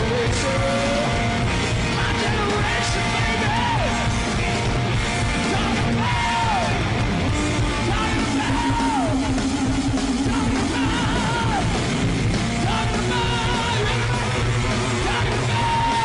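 Live hard-rock band playing loud: a distorted electric guitar solos, holding notes and bending them down in pitch, over steady drums and bass.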